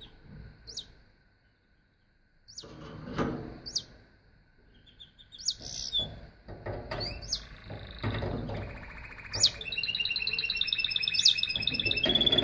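Domestic canary singing: scattered short chirps and call notes, then, about two-thirds of the way in, a fast trill of rapidly repeated notes that runs on continuously. Bursts of low scuffling noise come in among the early chirps.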